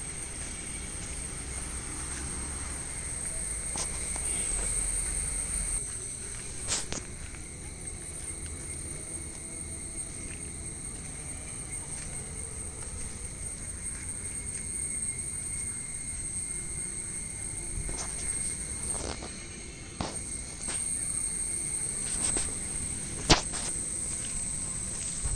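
Insects shrilling steadily in garden vegetation, a continuous high-pitched drone. A few sharp clicks break in, the loudest near the end.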